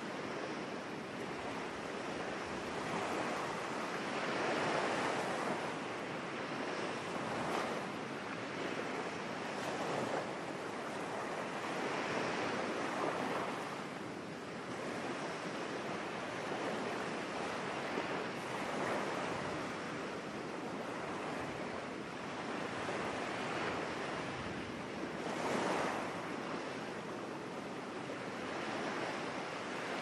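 Surf breaking on a sandy beach in a rough sea, a continuous wash of waves that swells and fades every few seconds.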